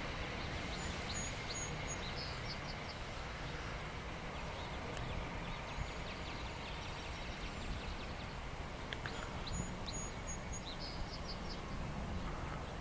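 Steady outdoor background noise, a low rumble with hiss, with small birds chirping in short runs of high notes about a second in and again around nine to eleven seconds in.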